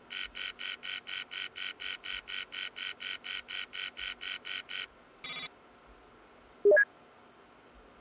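Electronic interface sound effects of an on-screen chatbot messaging screen: rapid high beeping, about four to five beeps a second, for nearly five seconds, then a short static-like burst and a brief rising blip as the chatbot's reply comes up.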